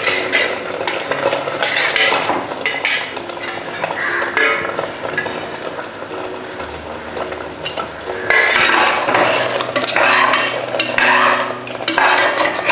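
Paneer cubes slid off a steel plate into boiling gravy in a stainless steel pot, with metal clinks of plate against pot rim. From about eight seconds in, a metal slotted spoon stirs and scrapes against the inside of the pot, louder and busier.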